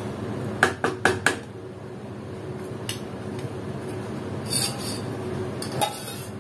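Wooden spatula knocked against the rim of an aluminium pressure cooker, four quick taps about a second in, with a few more light clinks near the end, over a steady low background noise.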